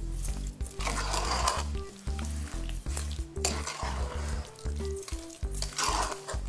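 Spoon stirring figs, sugar and lemon in a pot: three scraping swells, about a second each, over background music.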